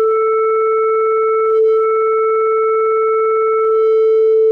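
Akai Miniak synthesizer oscillator holding a steady A at 440 Hz, a sine-wave tone. As the oscillator's shape parameter is moved, fainter higher overtones come and go above the fundamental.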